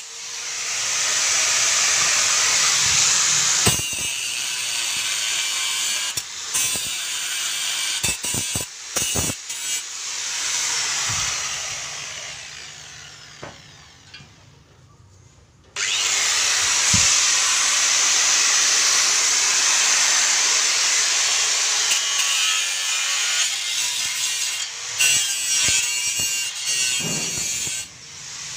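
Bosch GWS 060 angle grinder with its abrasive disc grinding and cutting into steel, a loud hissing grind. About eleven seconds in it is switched off and winds down. Near sixteen seconds it starts again suddenly and cuts for about twelve more seconds, with a few sharp metal knocks along the way.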